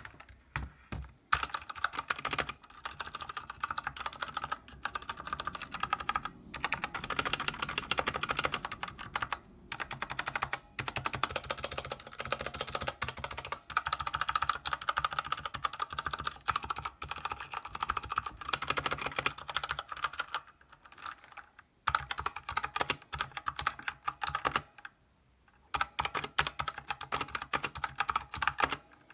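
Typing on an Ajazz AK33 mechanical keyboard with black (Zorro) switches: rapid, dense key clatter, broken by a few short pauses.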